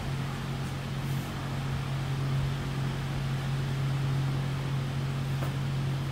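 A steady, low mechanical hum, like a fan running, over a faint even hiss, with a faint click about five seconds in.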